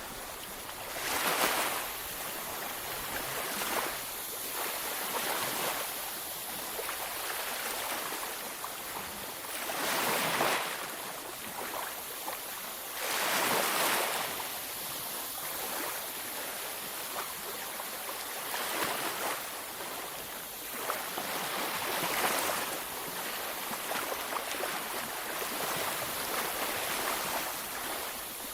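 Ocean waves washing onto a beach: a steady surf hiss with a louder wave breaking every few seconds, the biggest about a third and halfway through.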